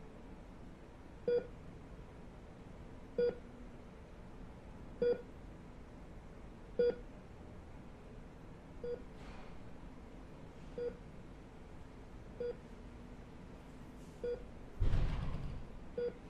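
Patient heart monitor beeping steadily, one short electronic beep roughly every two seconds. A brief rustling thump comes near the end.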